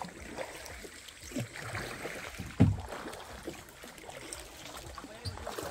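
River water splashing and trickling as someone moves through it, with scattered small knocks and one sharp thump about two and a half seconds in.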